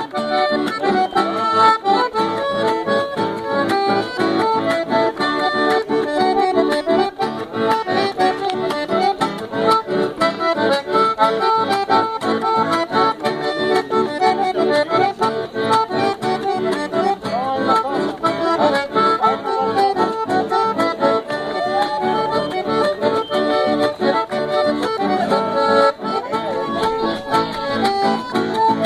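An accordion playing a traditional folk tune with sustained chords and melody, accompanied by an acoustic guitar strummed in a steady rhythm.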